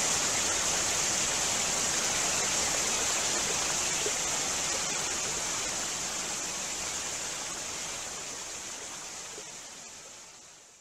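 Steady rush of running water in a pool, fading out over the last few seconds.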